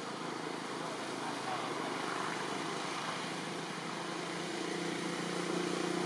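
Steady background engine noise, with a low hum that comes in about four seconds in and grows slightly louder toward the end.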